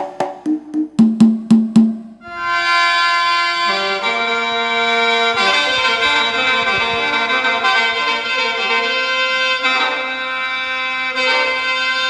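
Demo samples played on an Avatar PD-705 electronic percussion pad: a quick run of pitched drum or wood-block hits, then from about two seconds in a sustained reedy chord like an accordion's, which changes notes a few times.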